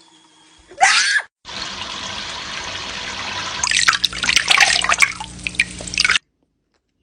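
Running water with splashing and dripping, growing louder and then cutting off suddenly near the end. A short call comes about a second in, before the water starts.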